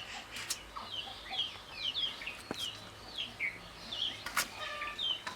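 Chicks peeping: a run of short, high, falling chirps, two or three a second, with a few faint clicks.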